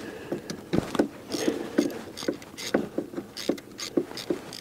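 Hand ratchet on an extension turning out valve cover bolts, clicking in quick uneven runs of about three or four clicks a second.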